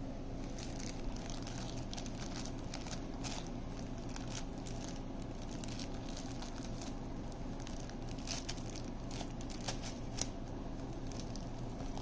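A clear plastic bag crinkling in irregular crackles as a pair of pliers is unwrapped from it, over a steady low hum.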